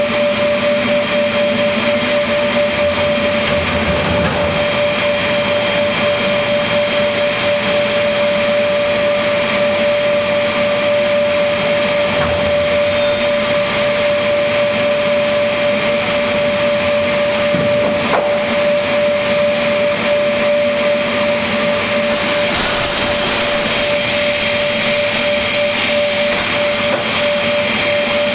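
Automatic MDF board cutting machine running steadily, a loud even mechanical noise with a strong steady hum held throughout.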